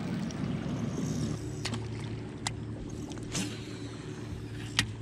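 Electric trolling motor humming steadily beneath the boat, with a few short sharp ticks and taps, the loudest near the end.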